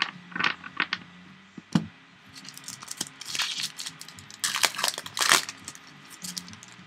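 Football trading cards handled in the hands: cards sliding and rustling against one another in short bursts, with a sharp click a little under two seconds in and the loudest rustles near the end.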